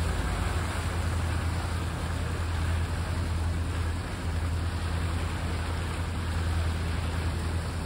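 Tour boat's engine running at a steady low drone while under way, over a continuous rushing hiss of water and wind.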